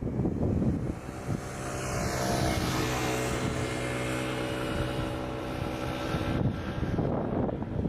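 A jet airliner passing close by on its landing approach: a steady engine hum with a high whine that falls in pitch as it goes past, fading out about six and a half seconds in. Gusting wind buffets the microphone at the start and end.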